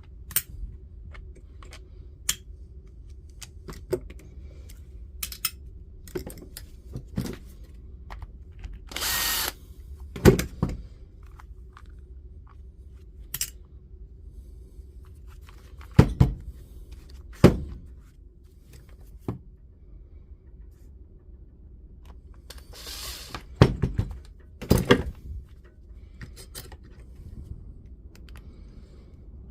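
Two short runs of a power screwdriver, each about a second long, backing out the small T15 Torx screws from the multi-tool's housing. Between them come scattered clicks and knocks of screws and tools being handled.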